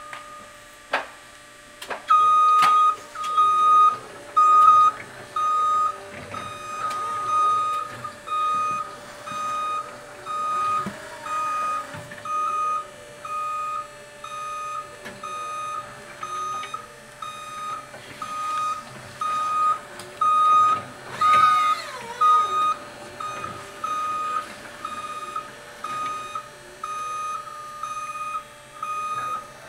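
Forklift warning beeper sounding a steady, single-pitch beep a bit more than once a second as the truck moves, over a constant hum. A brief, louder scraping squeal comes about two-thirds of the way through.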